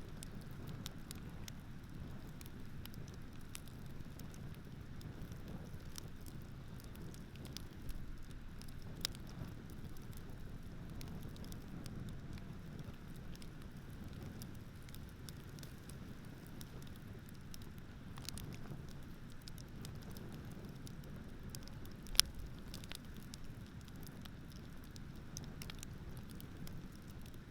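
Campfire crackling with scattered small pops and one sharper pop about three-quarters of the way through, over a steady low wash of ocean surf.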